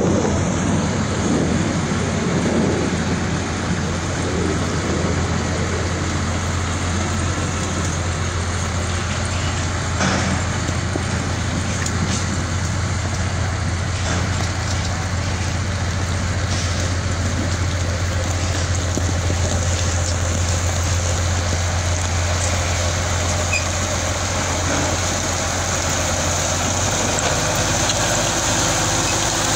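Motor grader's diesel engine running steadily under load as the grader spreads and levels gravel with its blade: a continuous low drone with noise over it, the engine note shifting slightly near the end.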